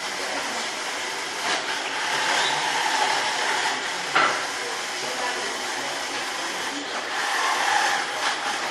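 Robot vacuum cleaner running, a steady hiss of its suction fan and brushes, with a single sharp knock about four seconds in.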